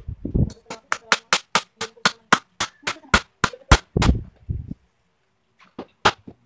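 A hammer driving nails into a wooden sofa frame: a quick, even run of sharp strikes, about four or five a second for some three seconds, then one more blow near the end. Dull thumps of the wooden frame being handled come just before and just after the run.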